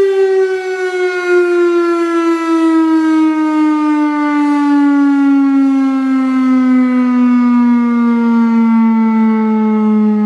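Federal Signal STH-10 single-tone rotating outdoor warning siren winding down, its pitch falling slowly and steadily.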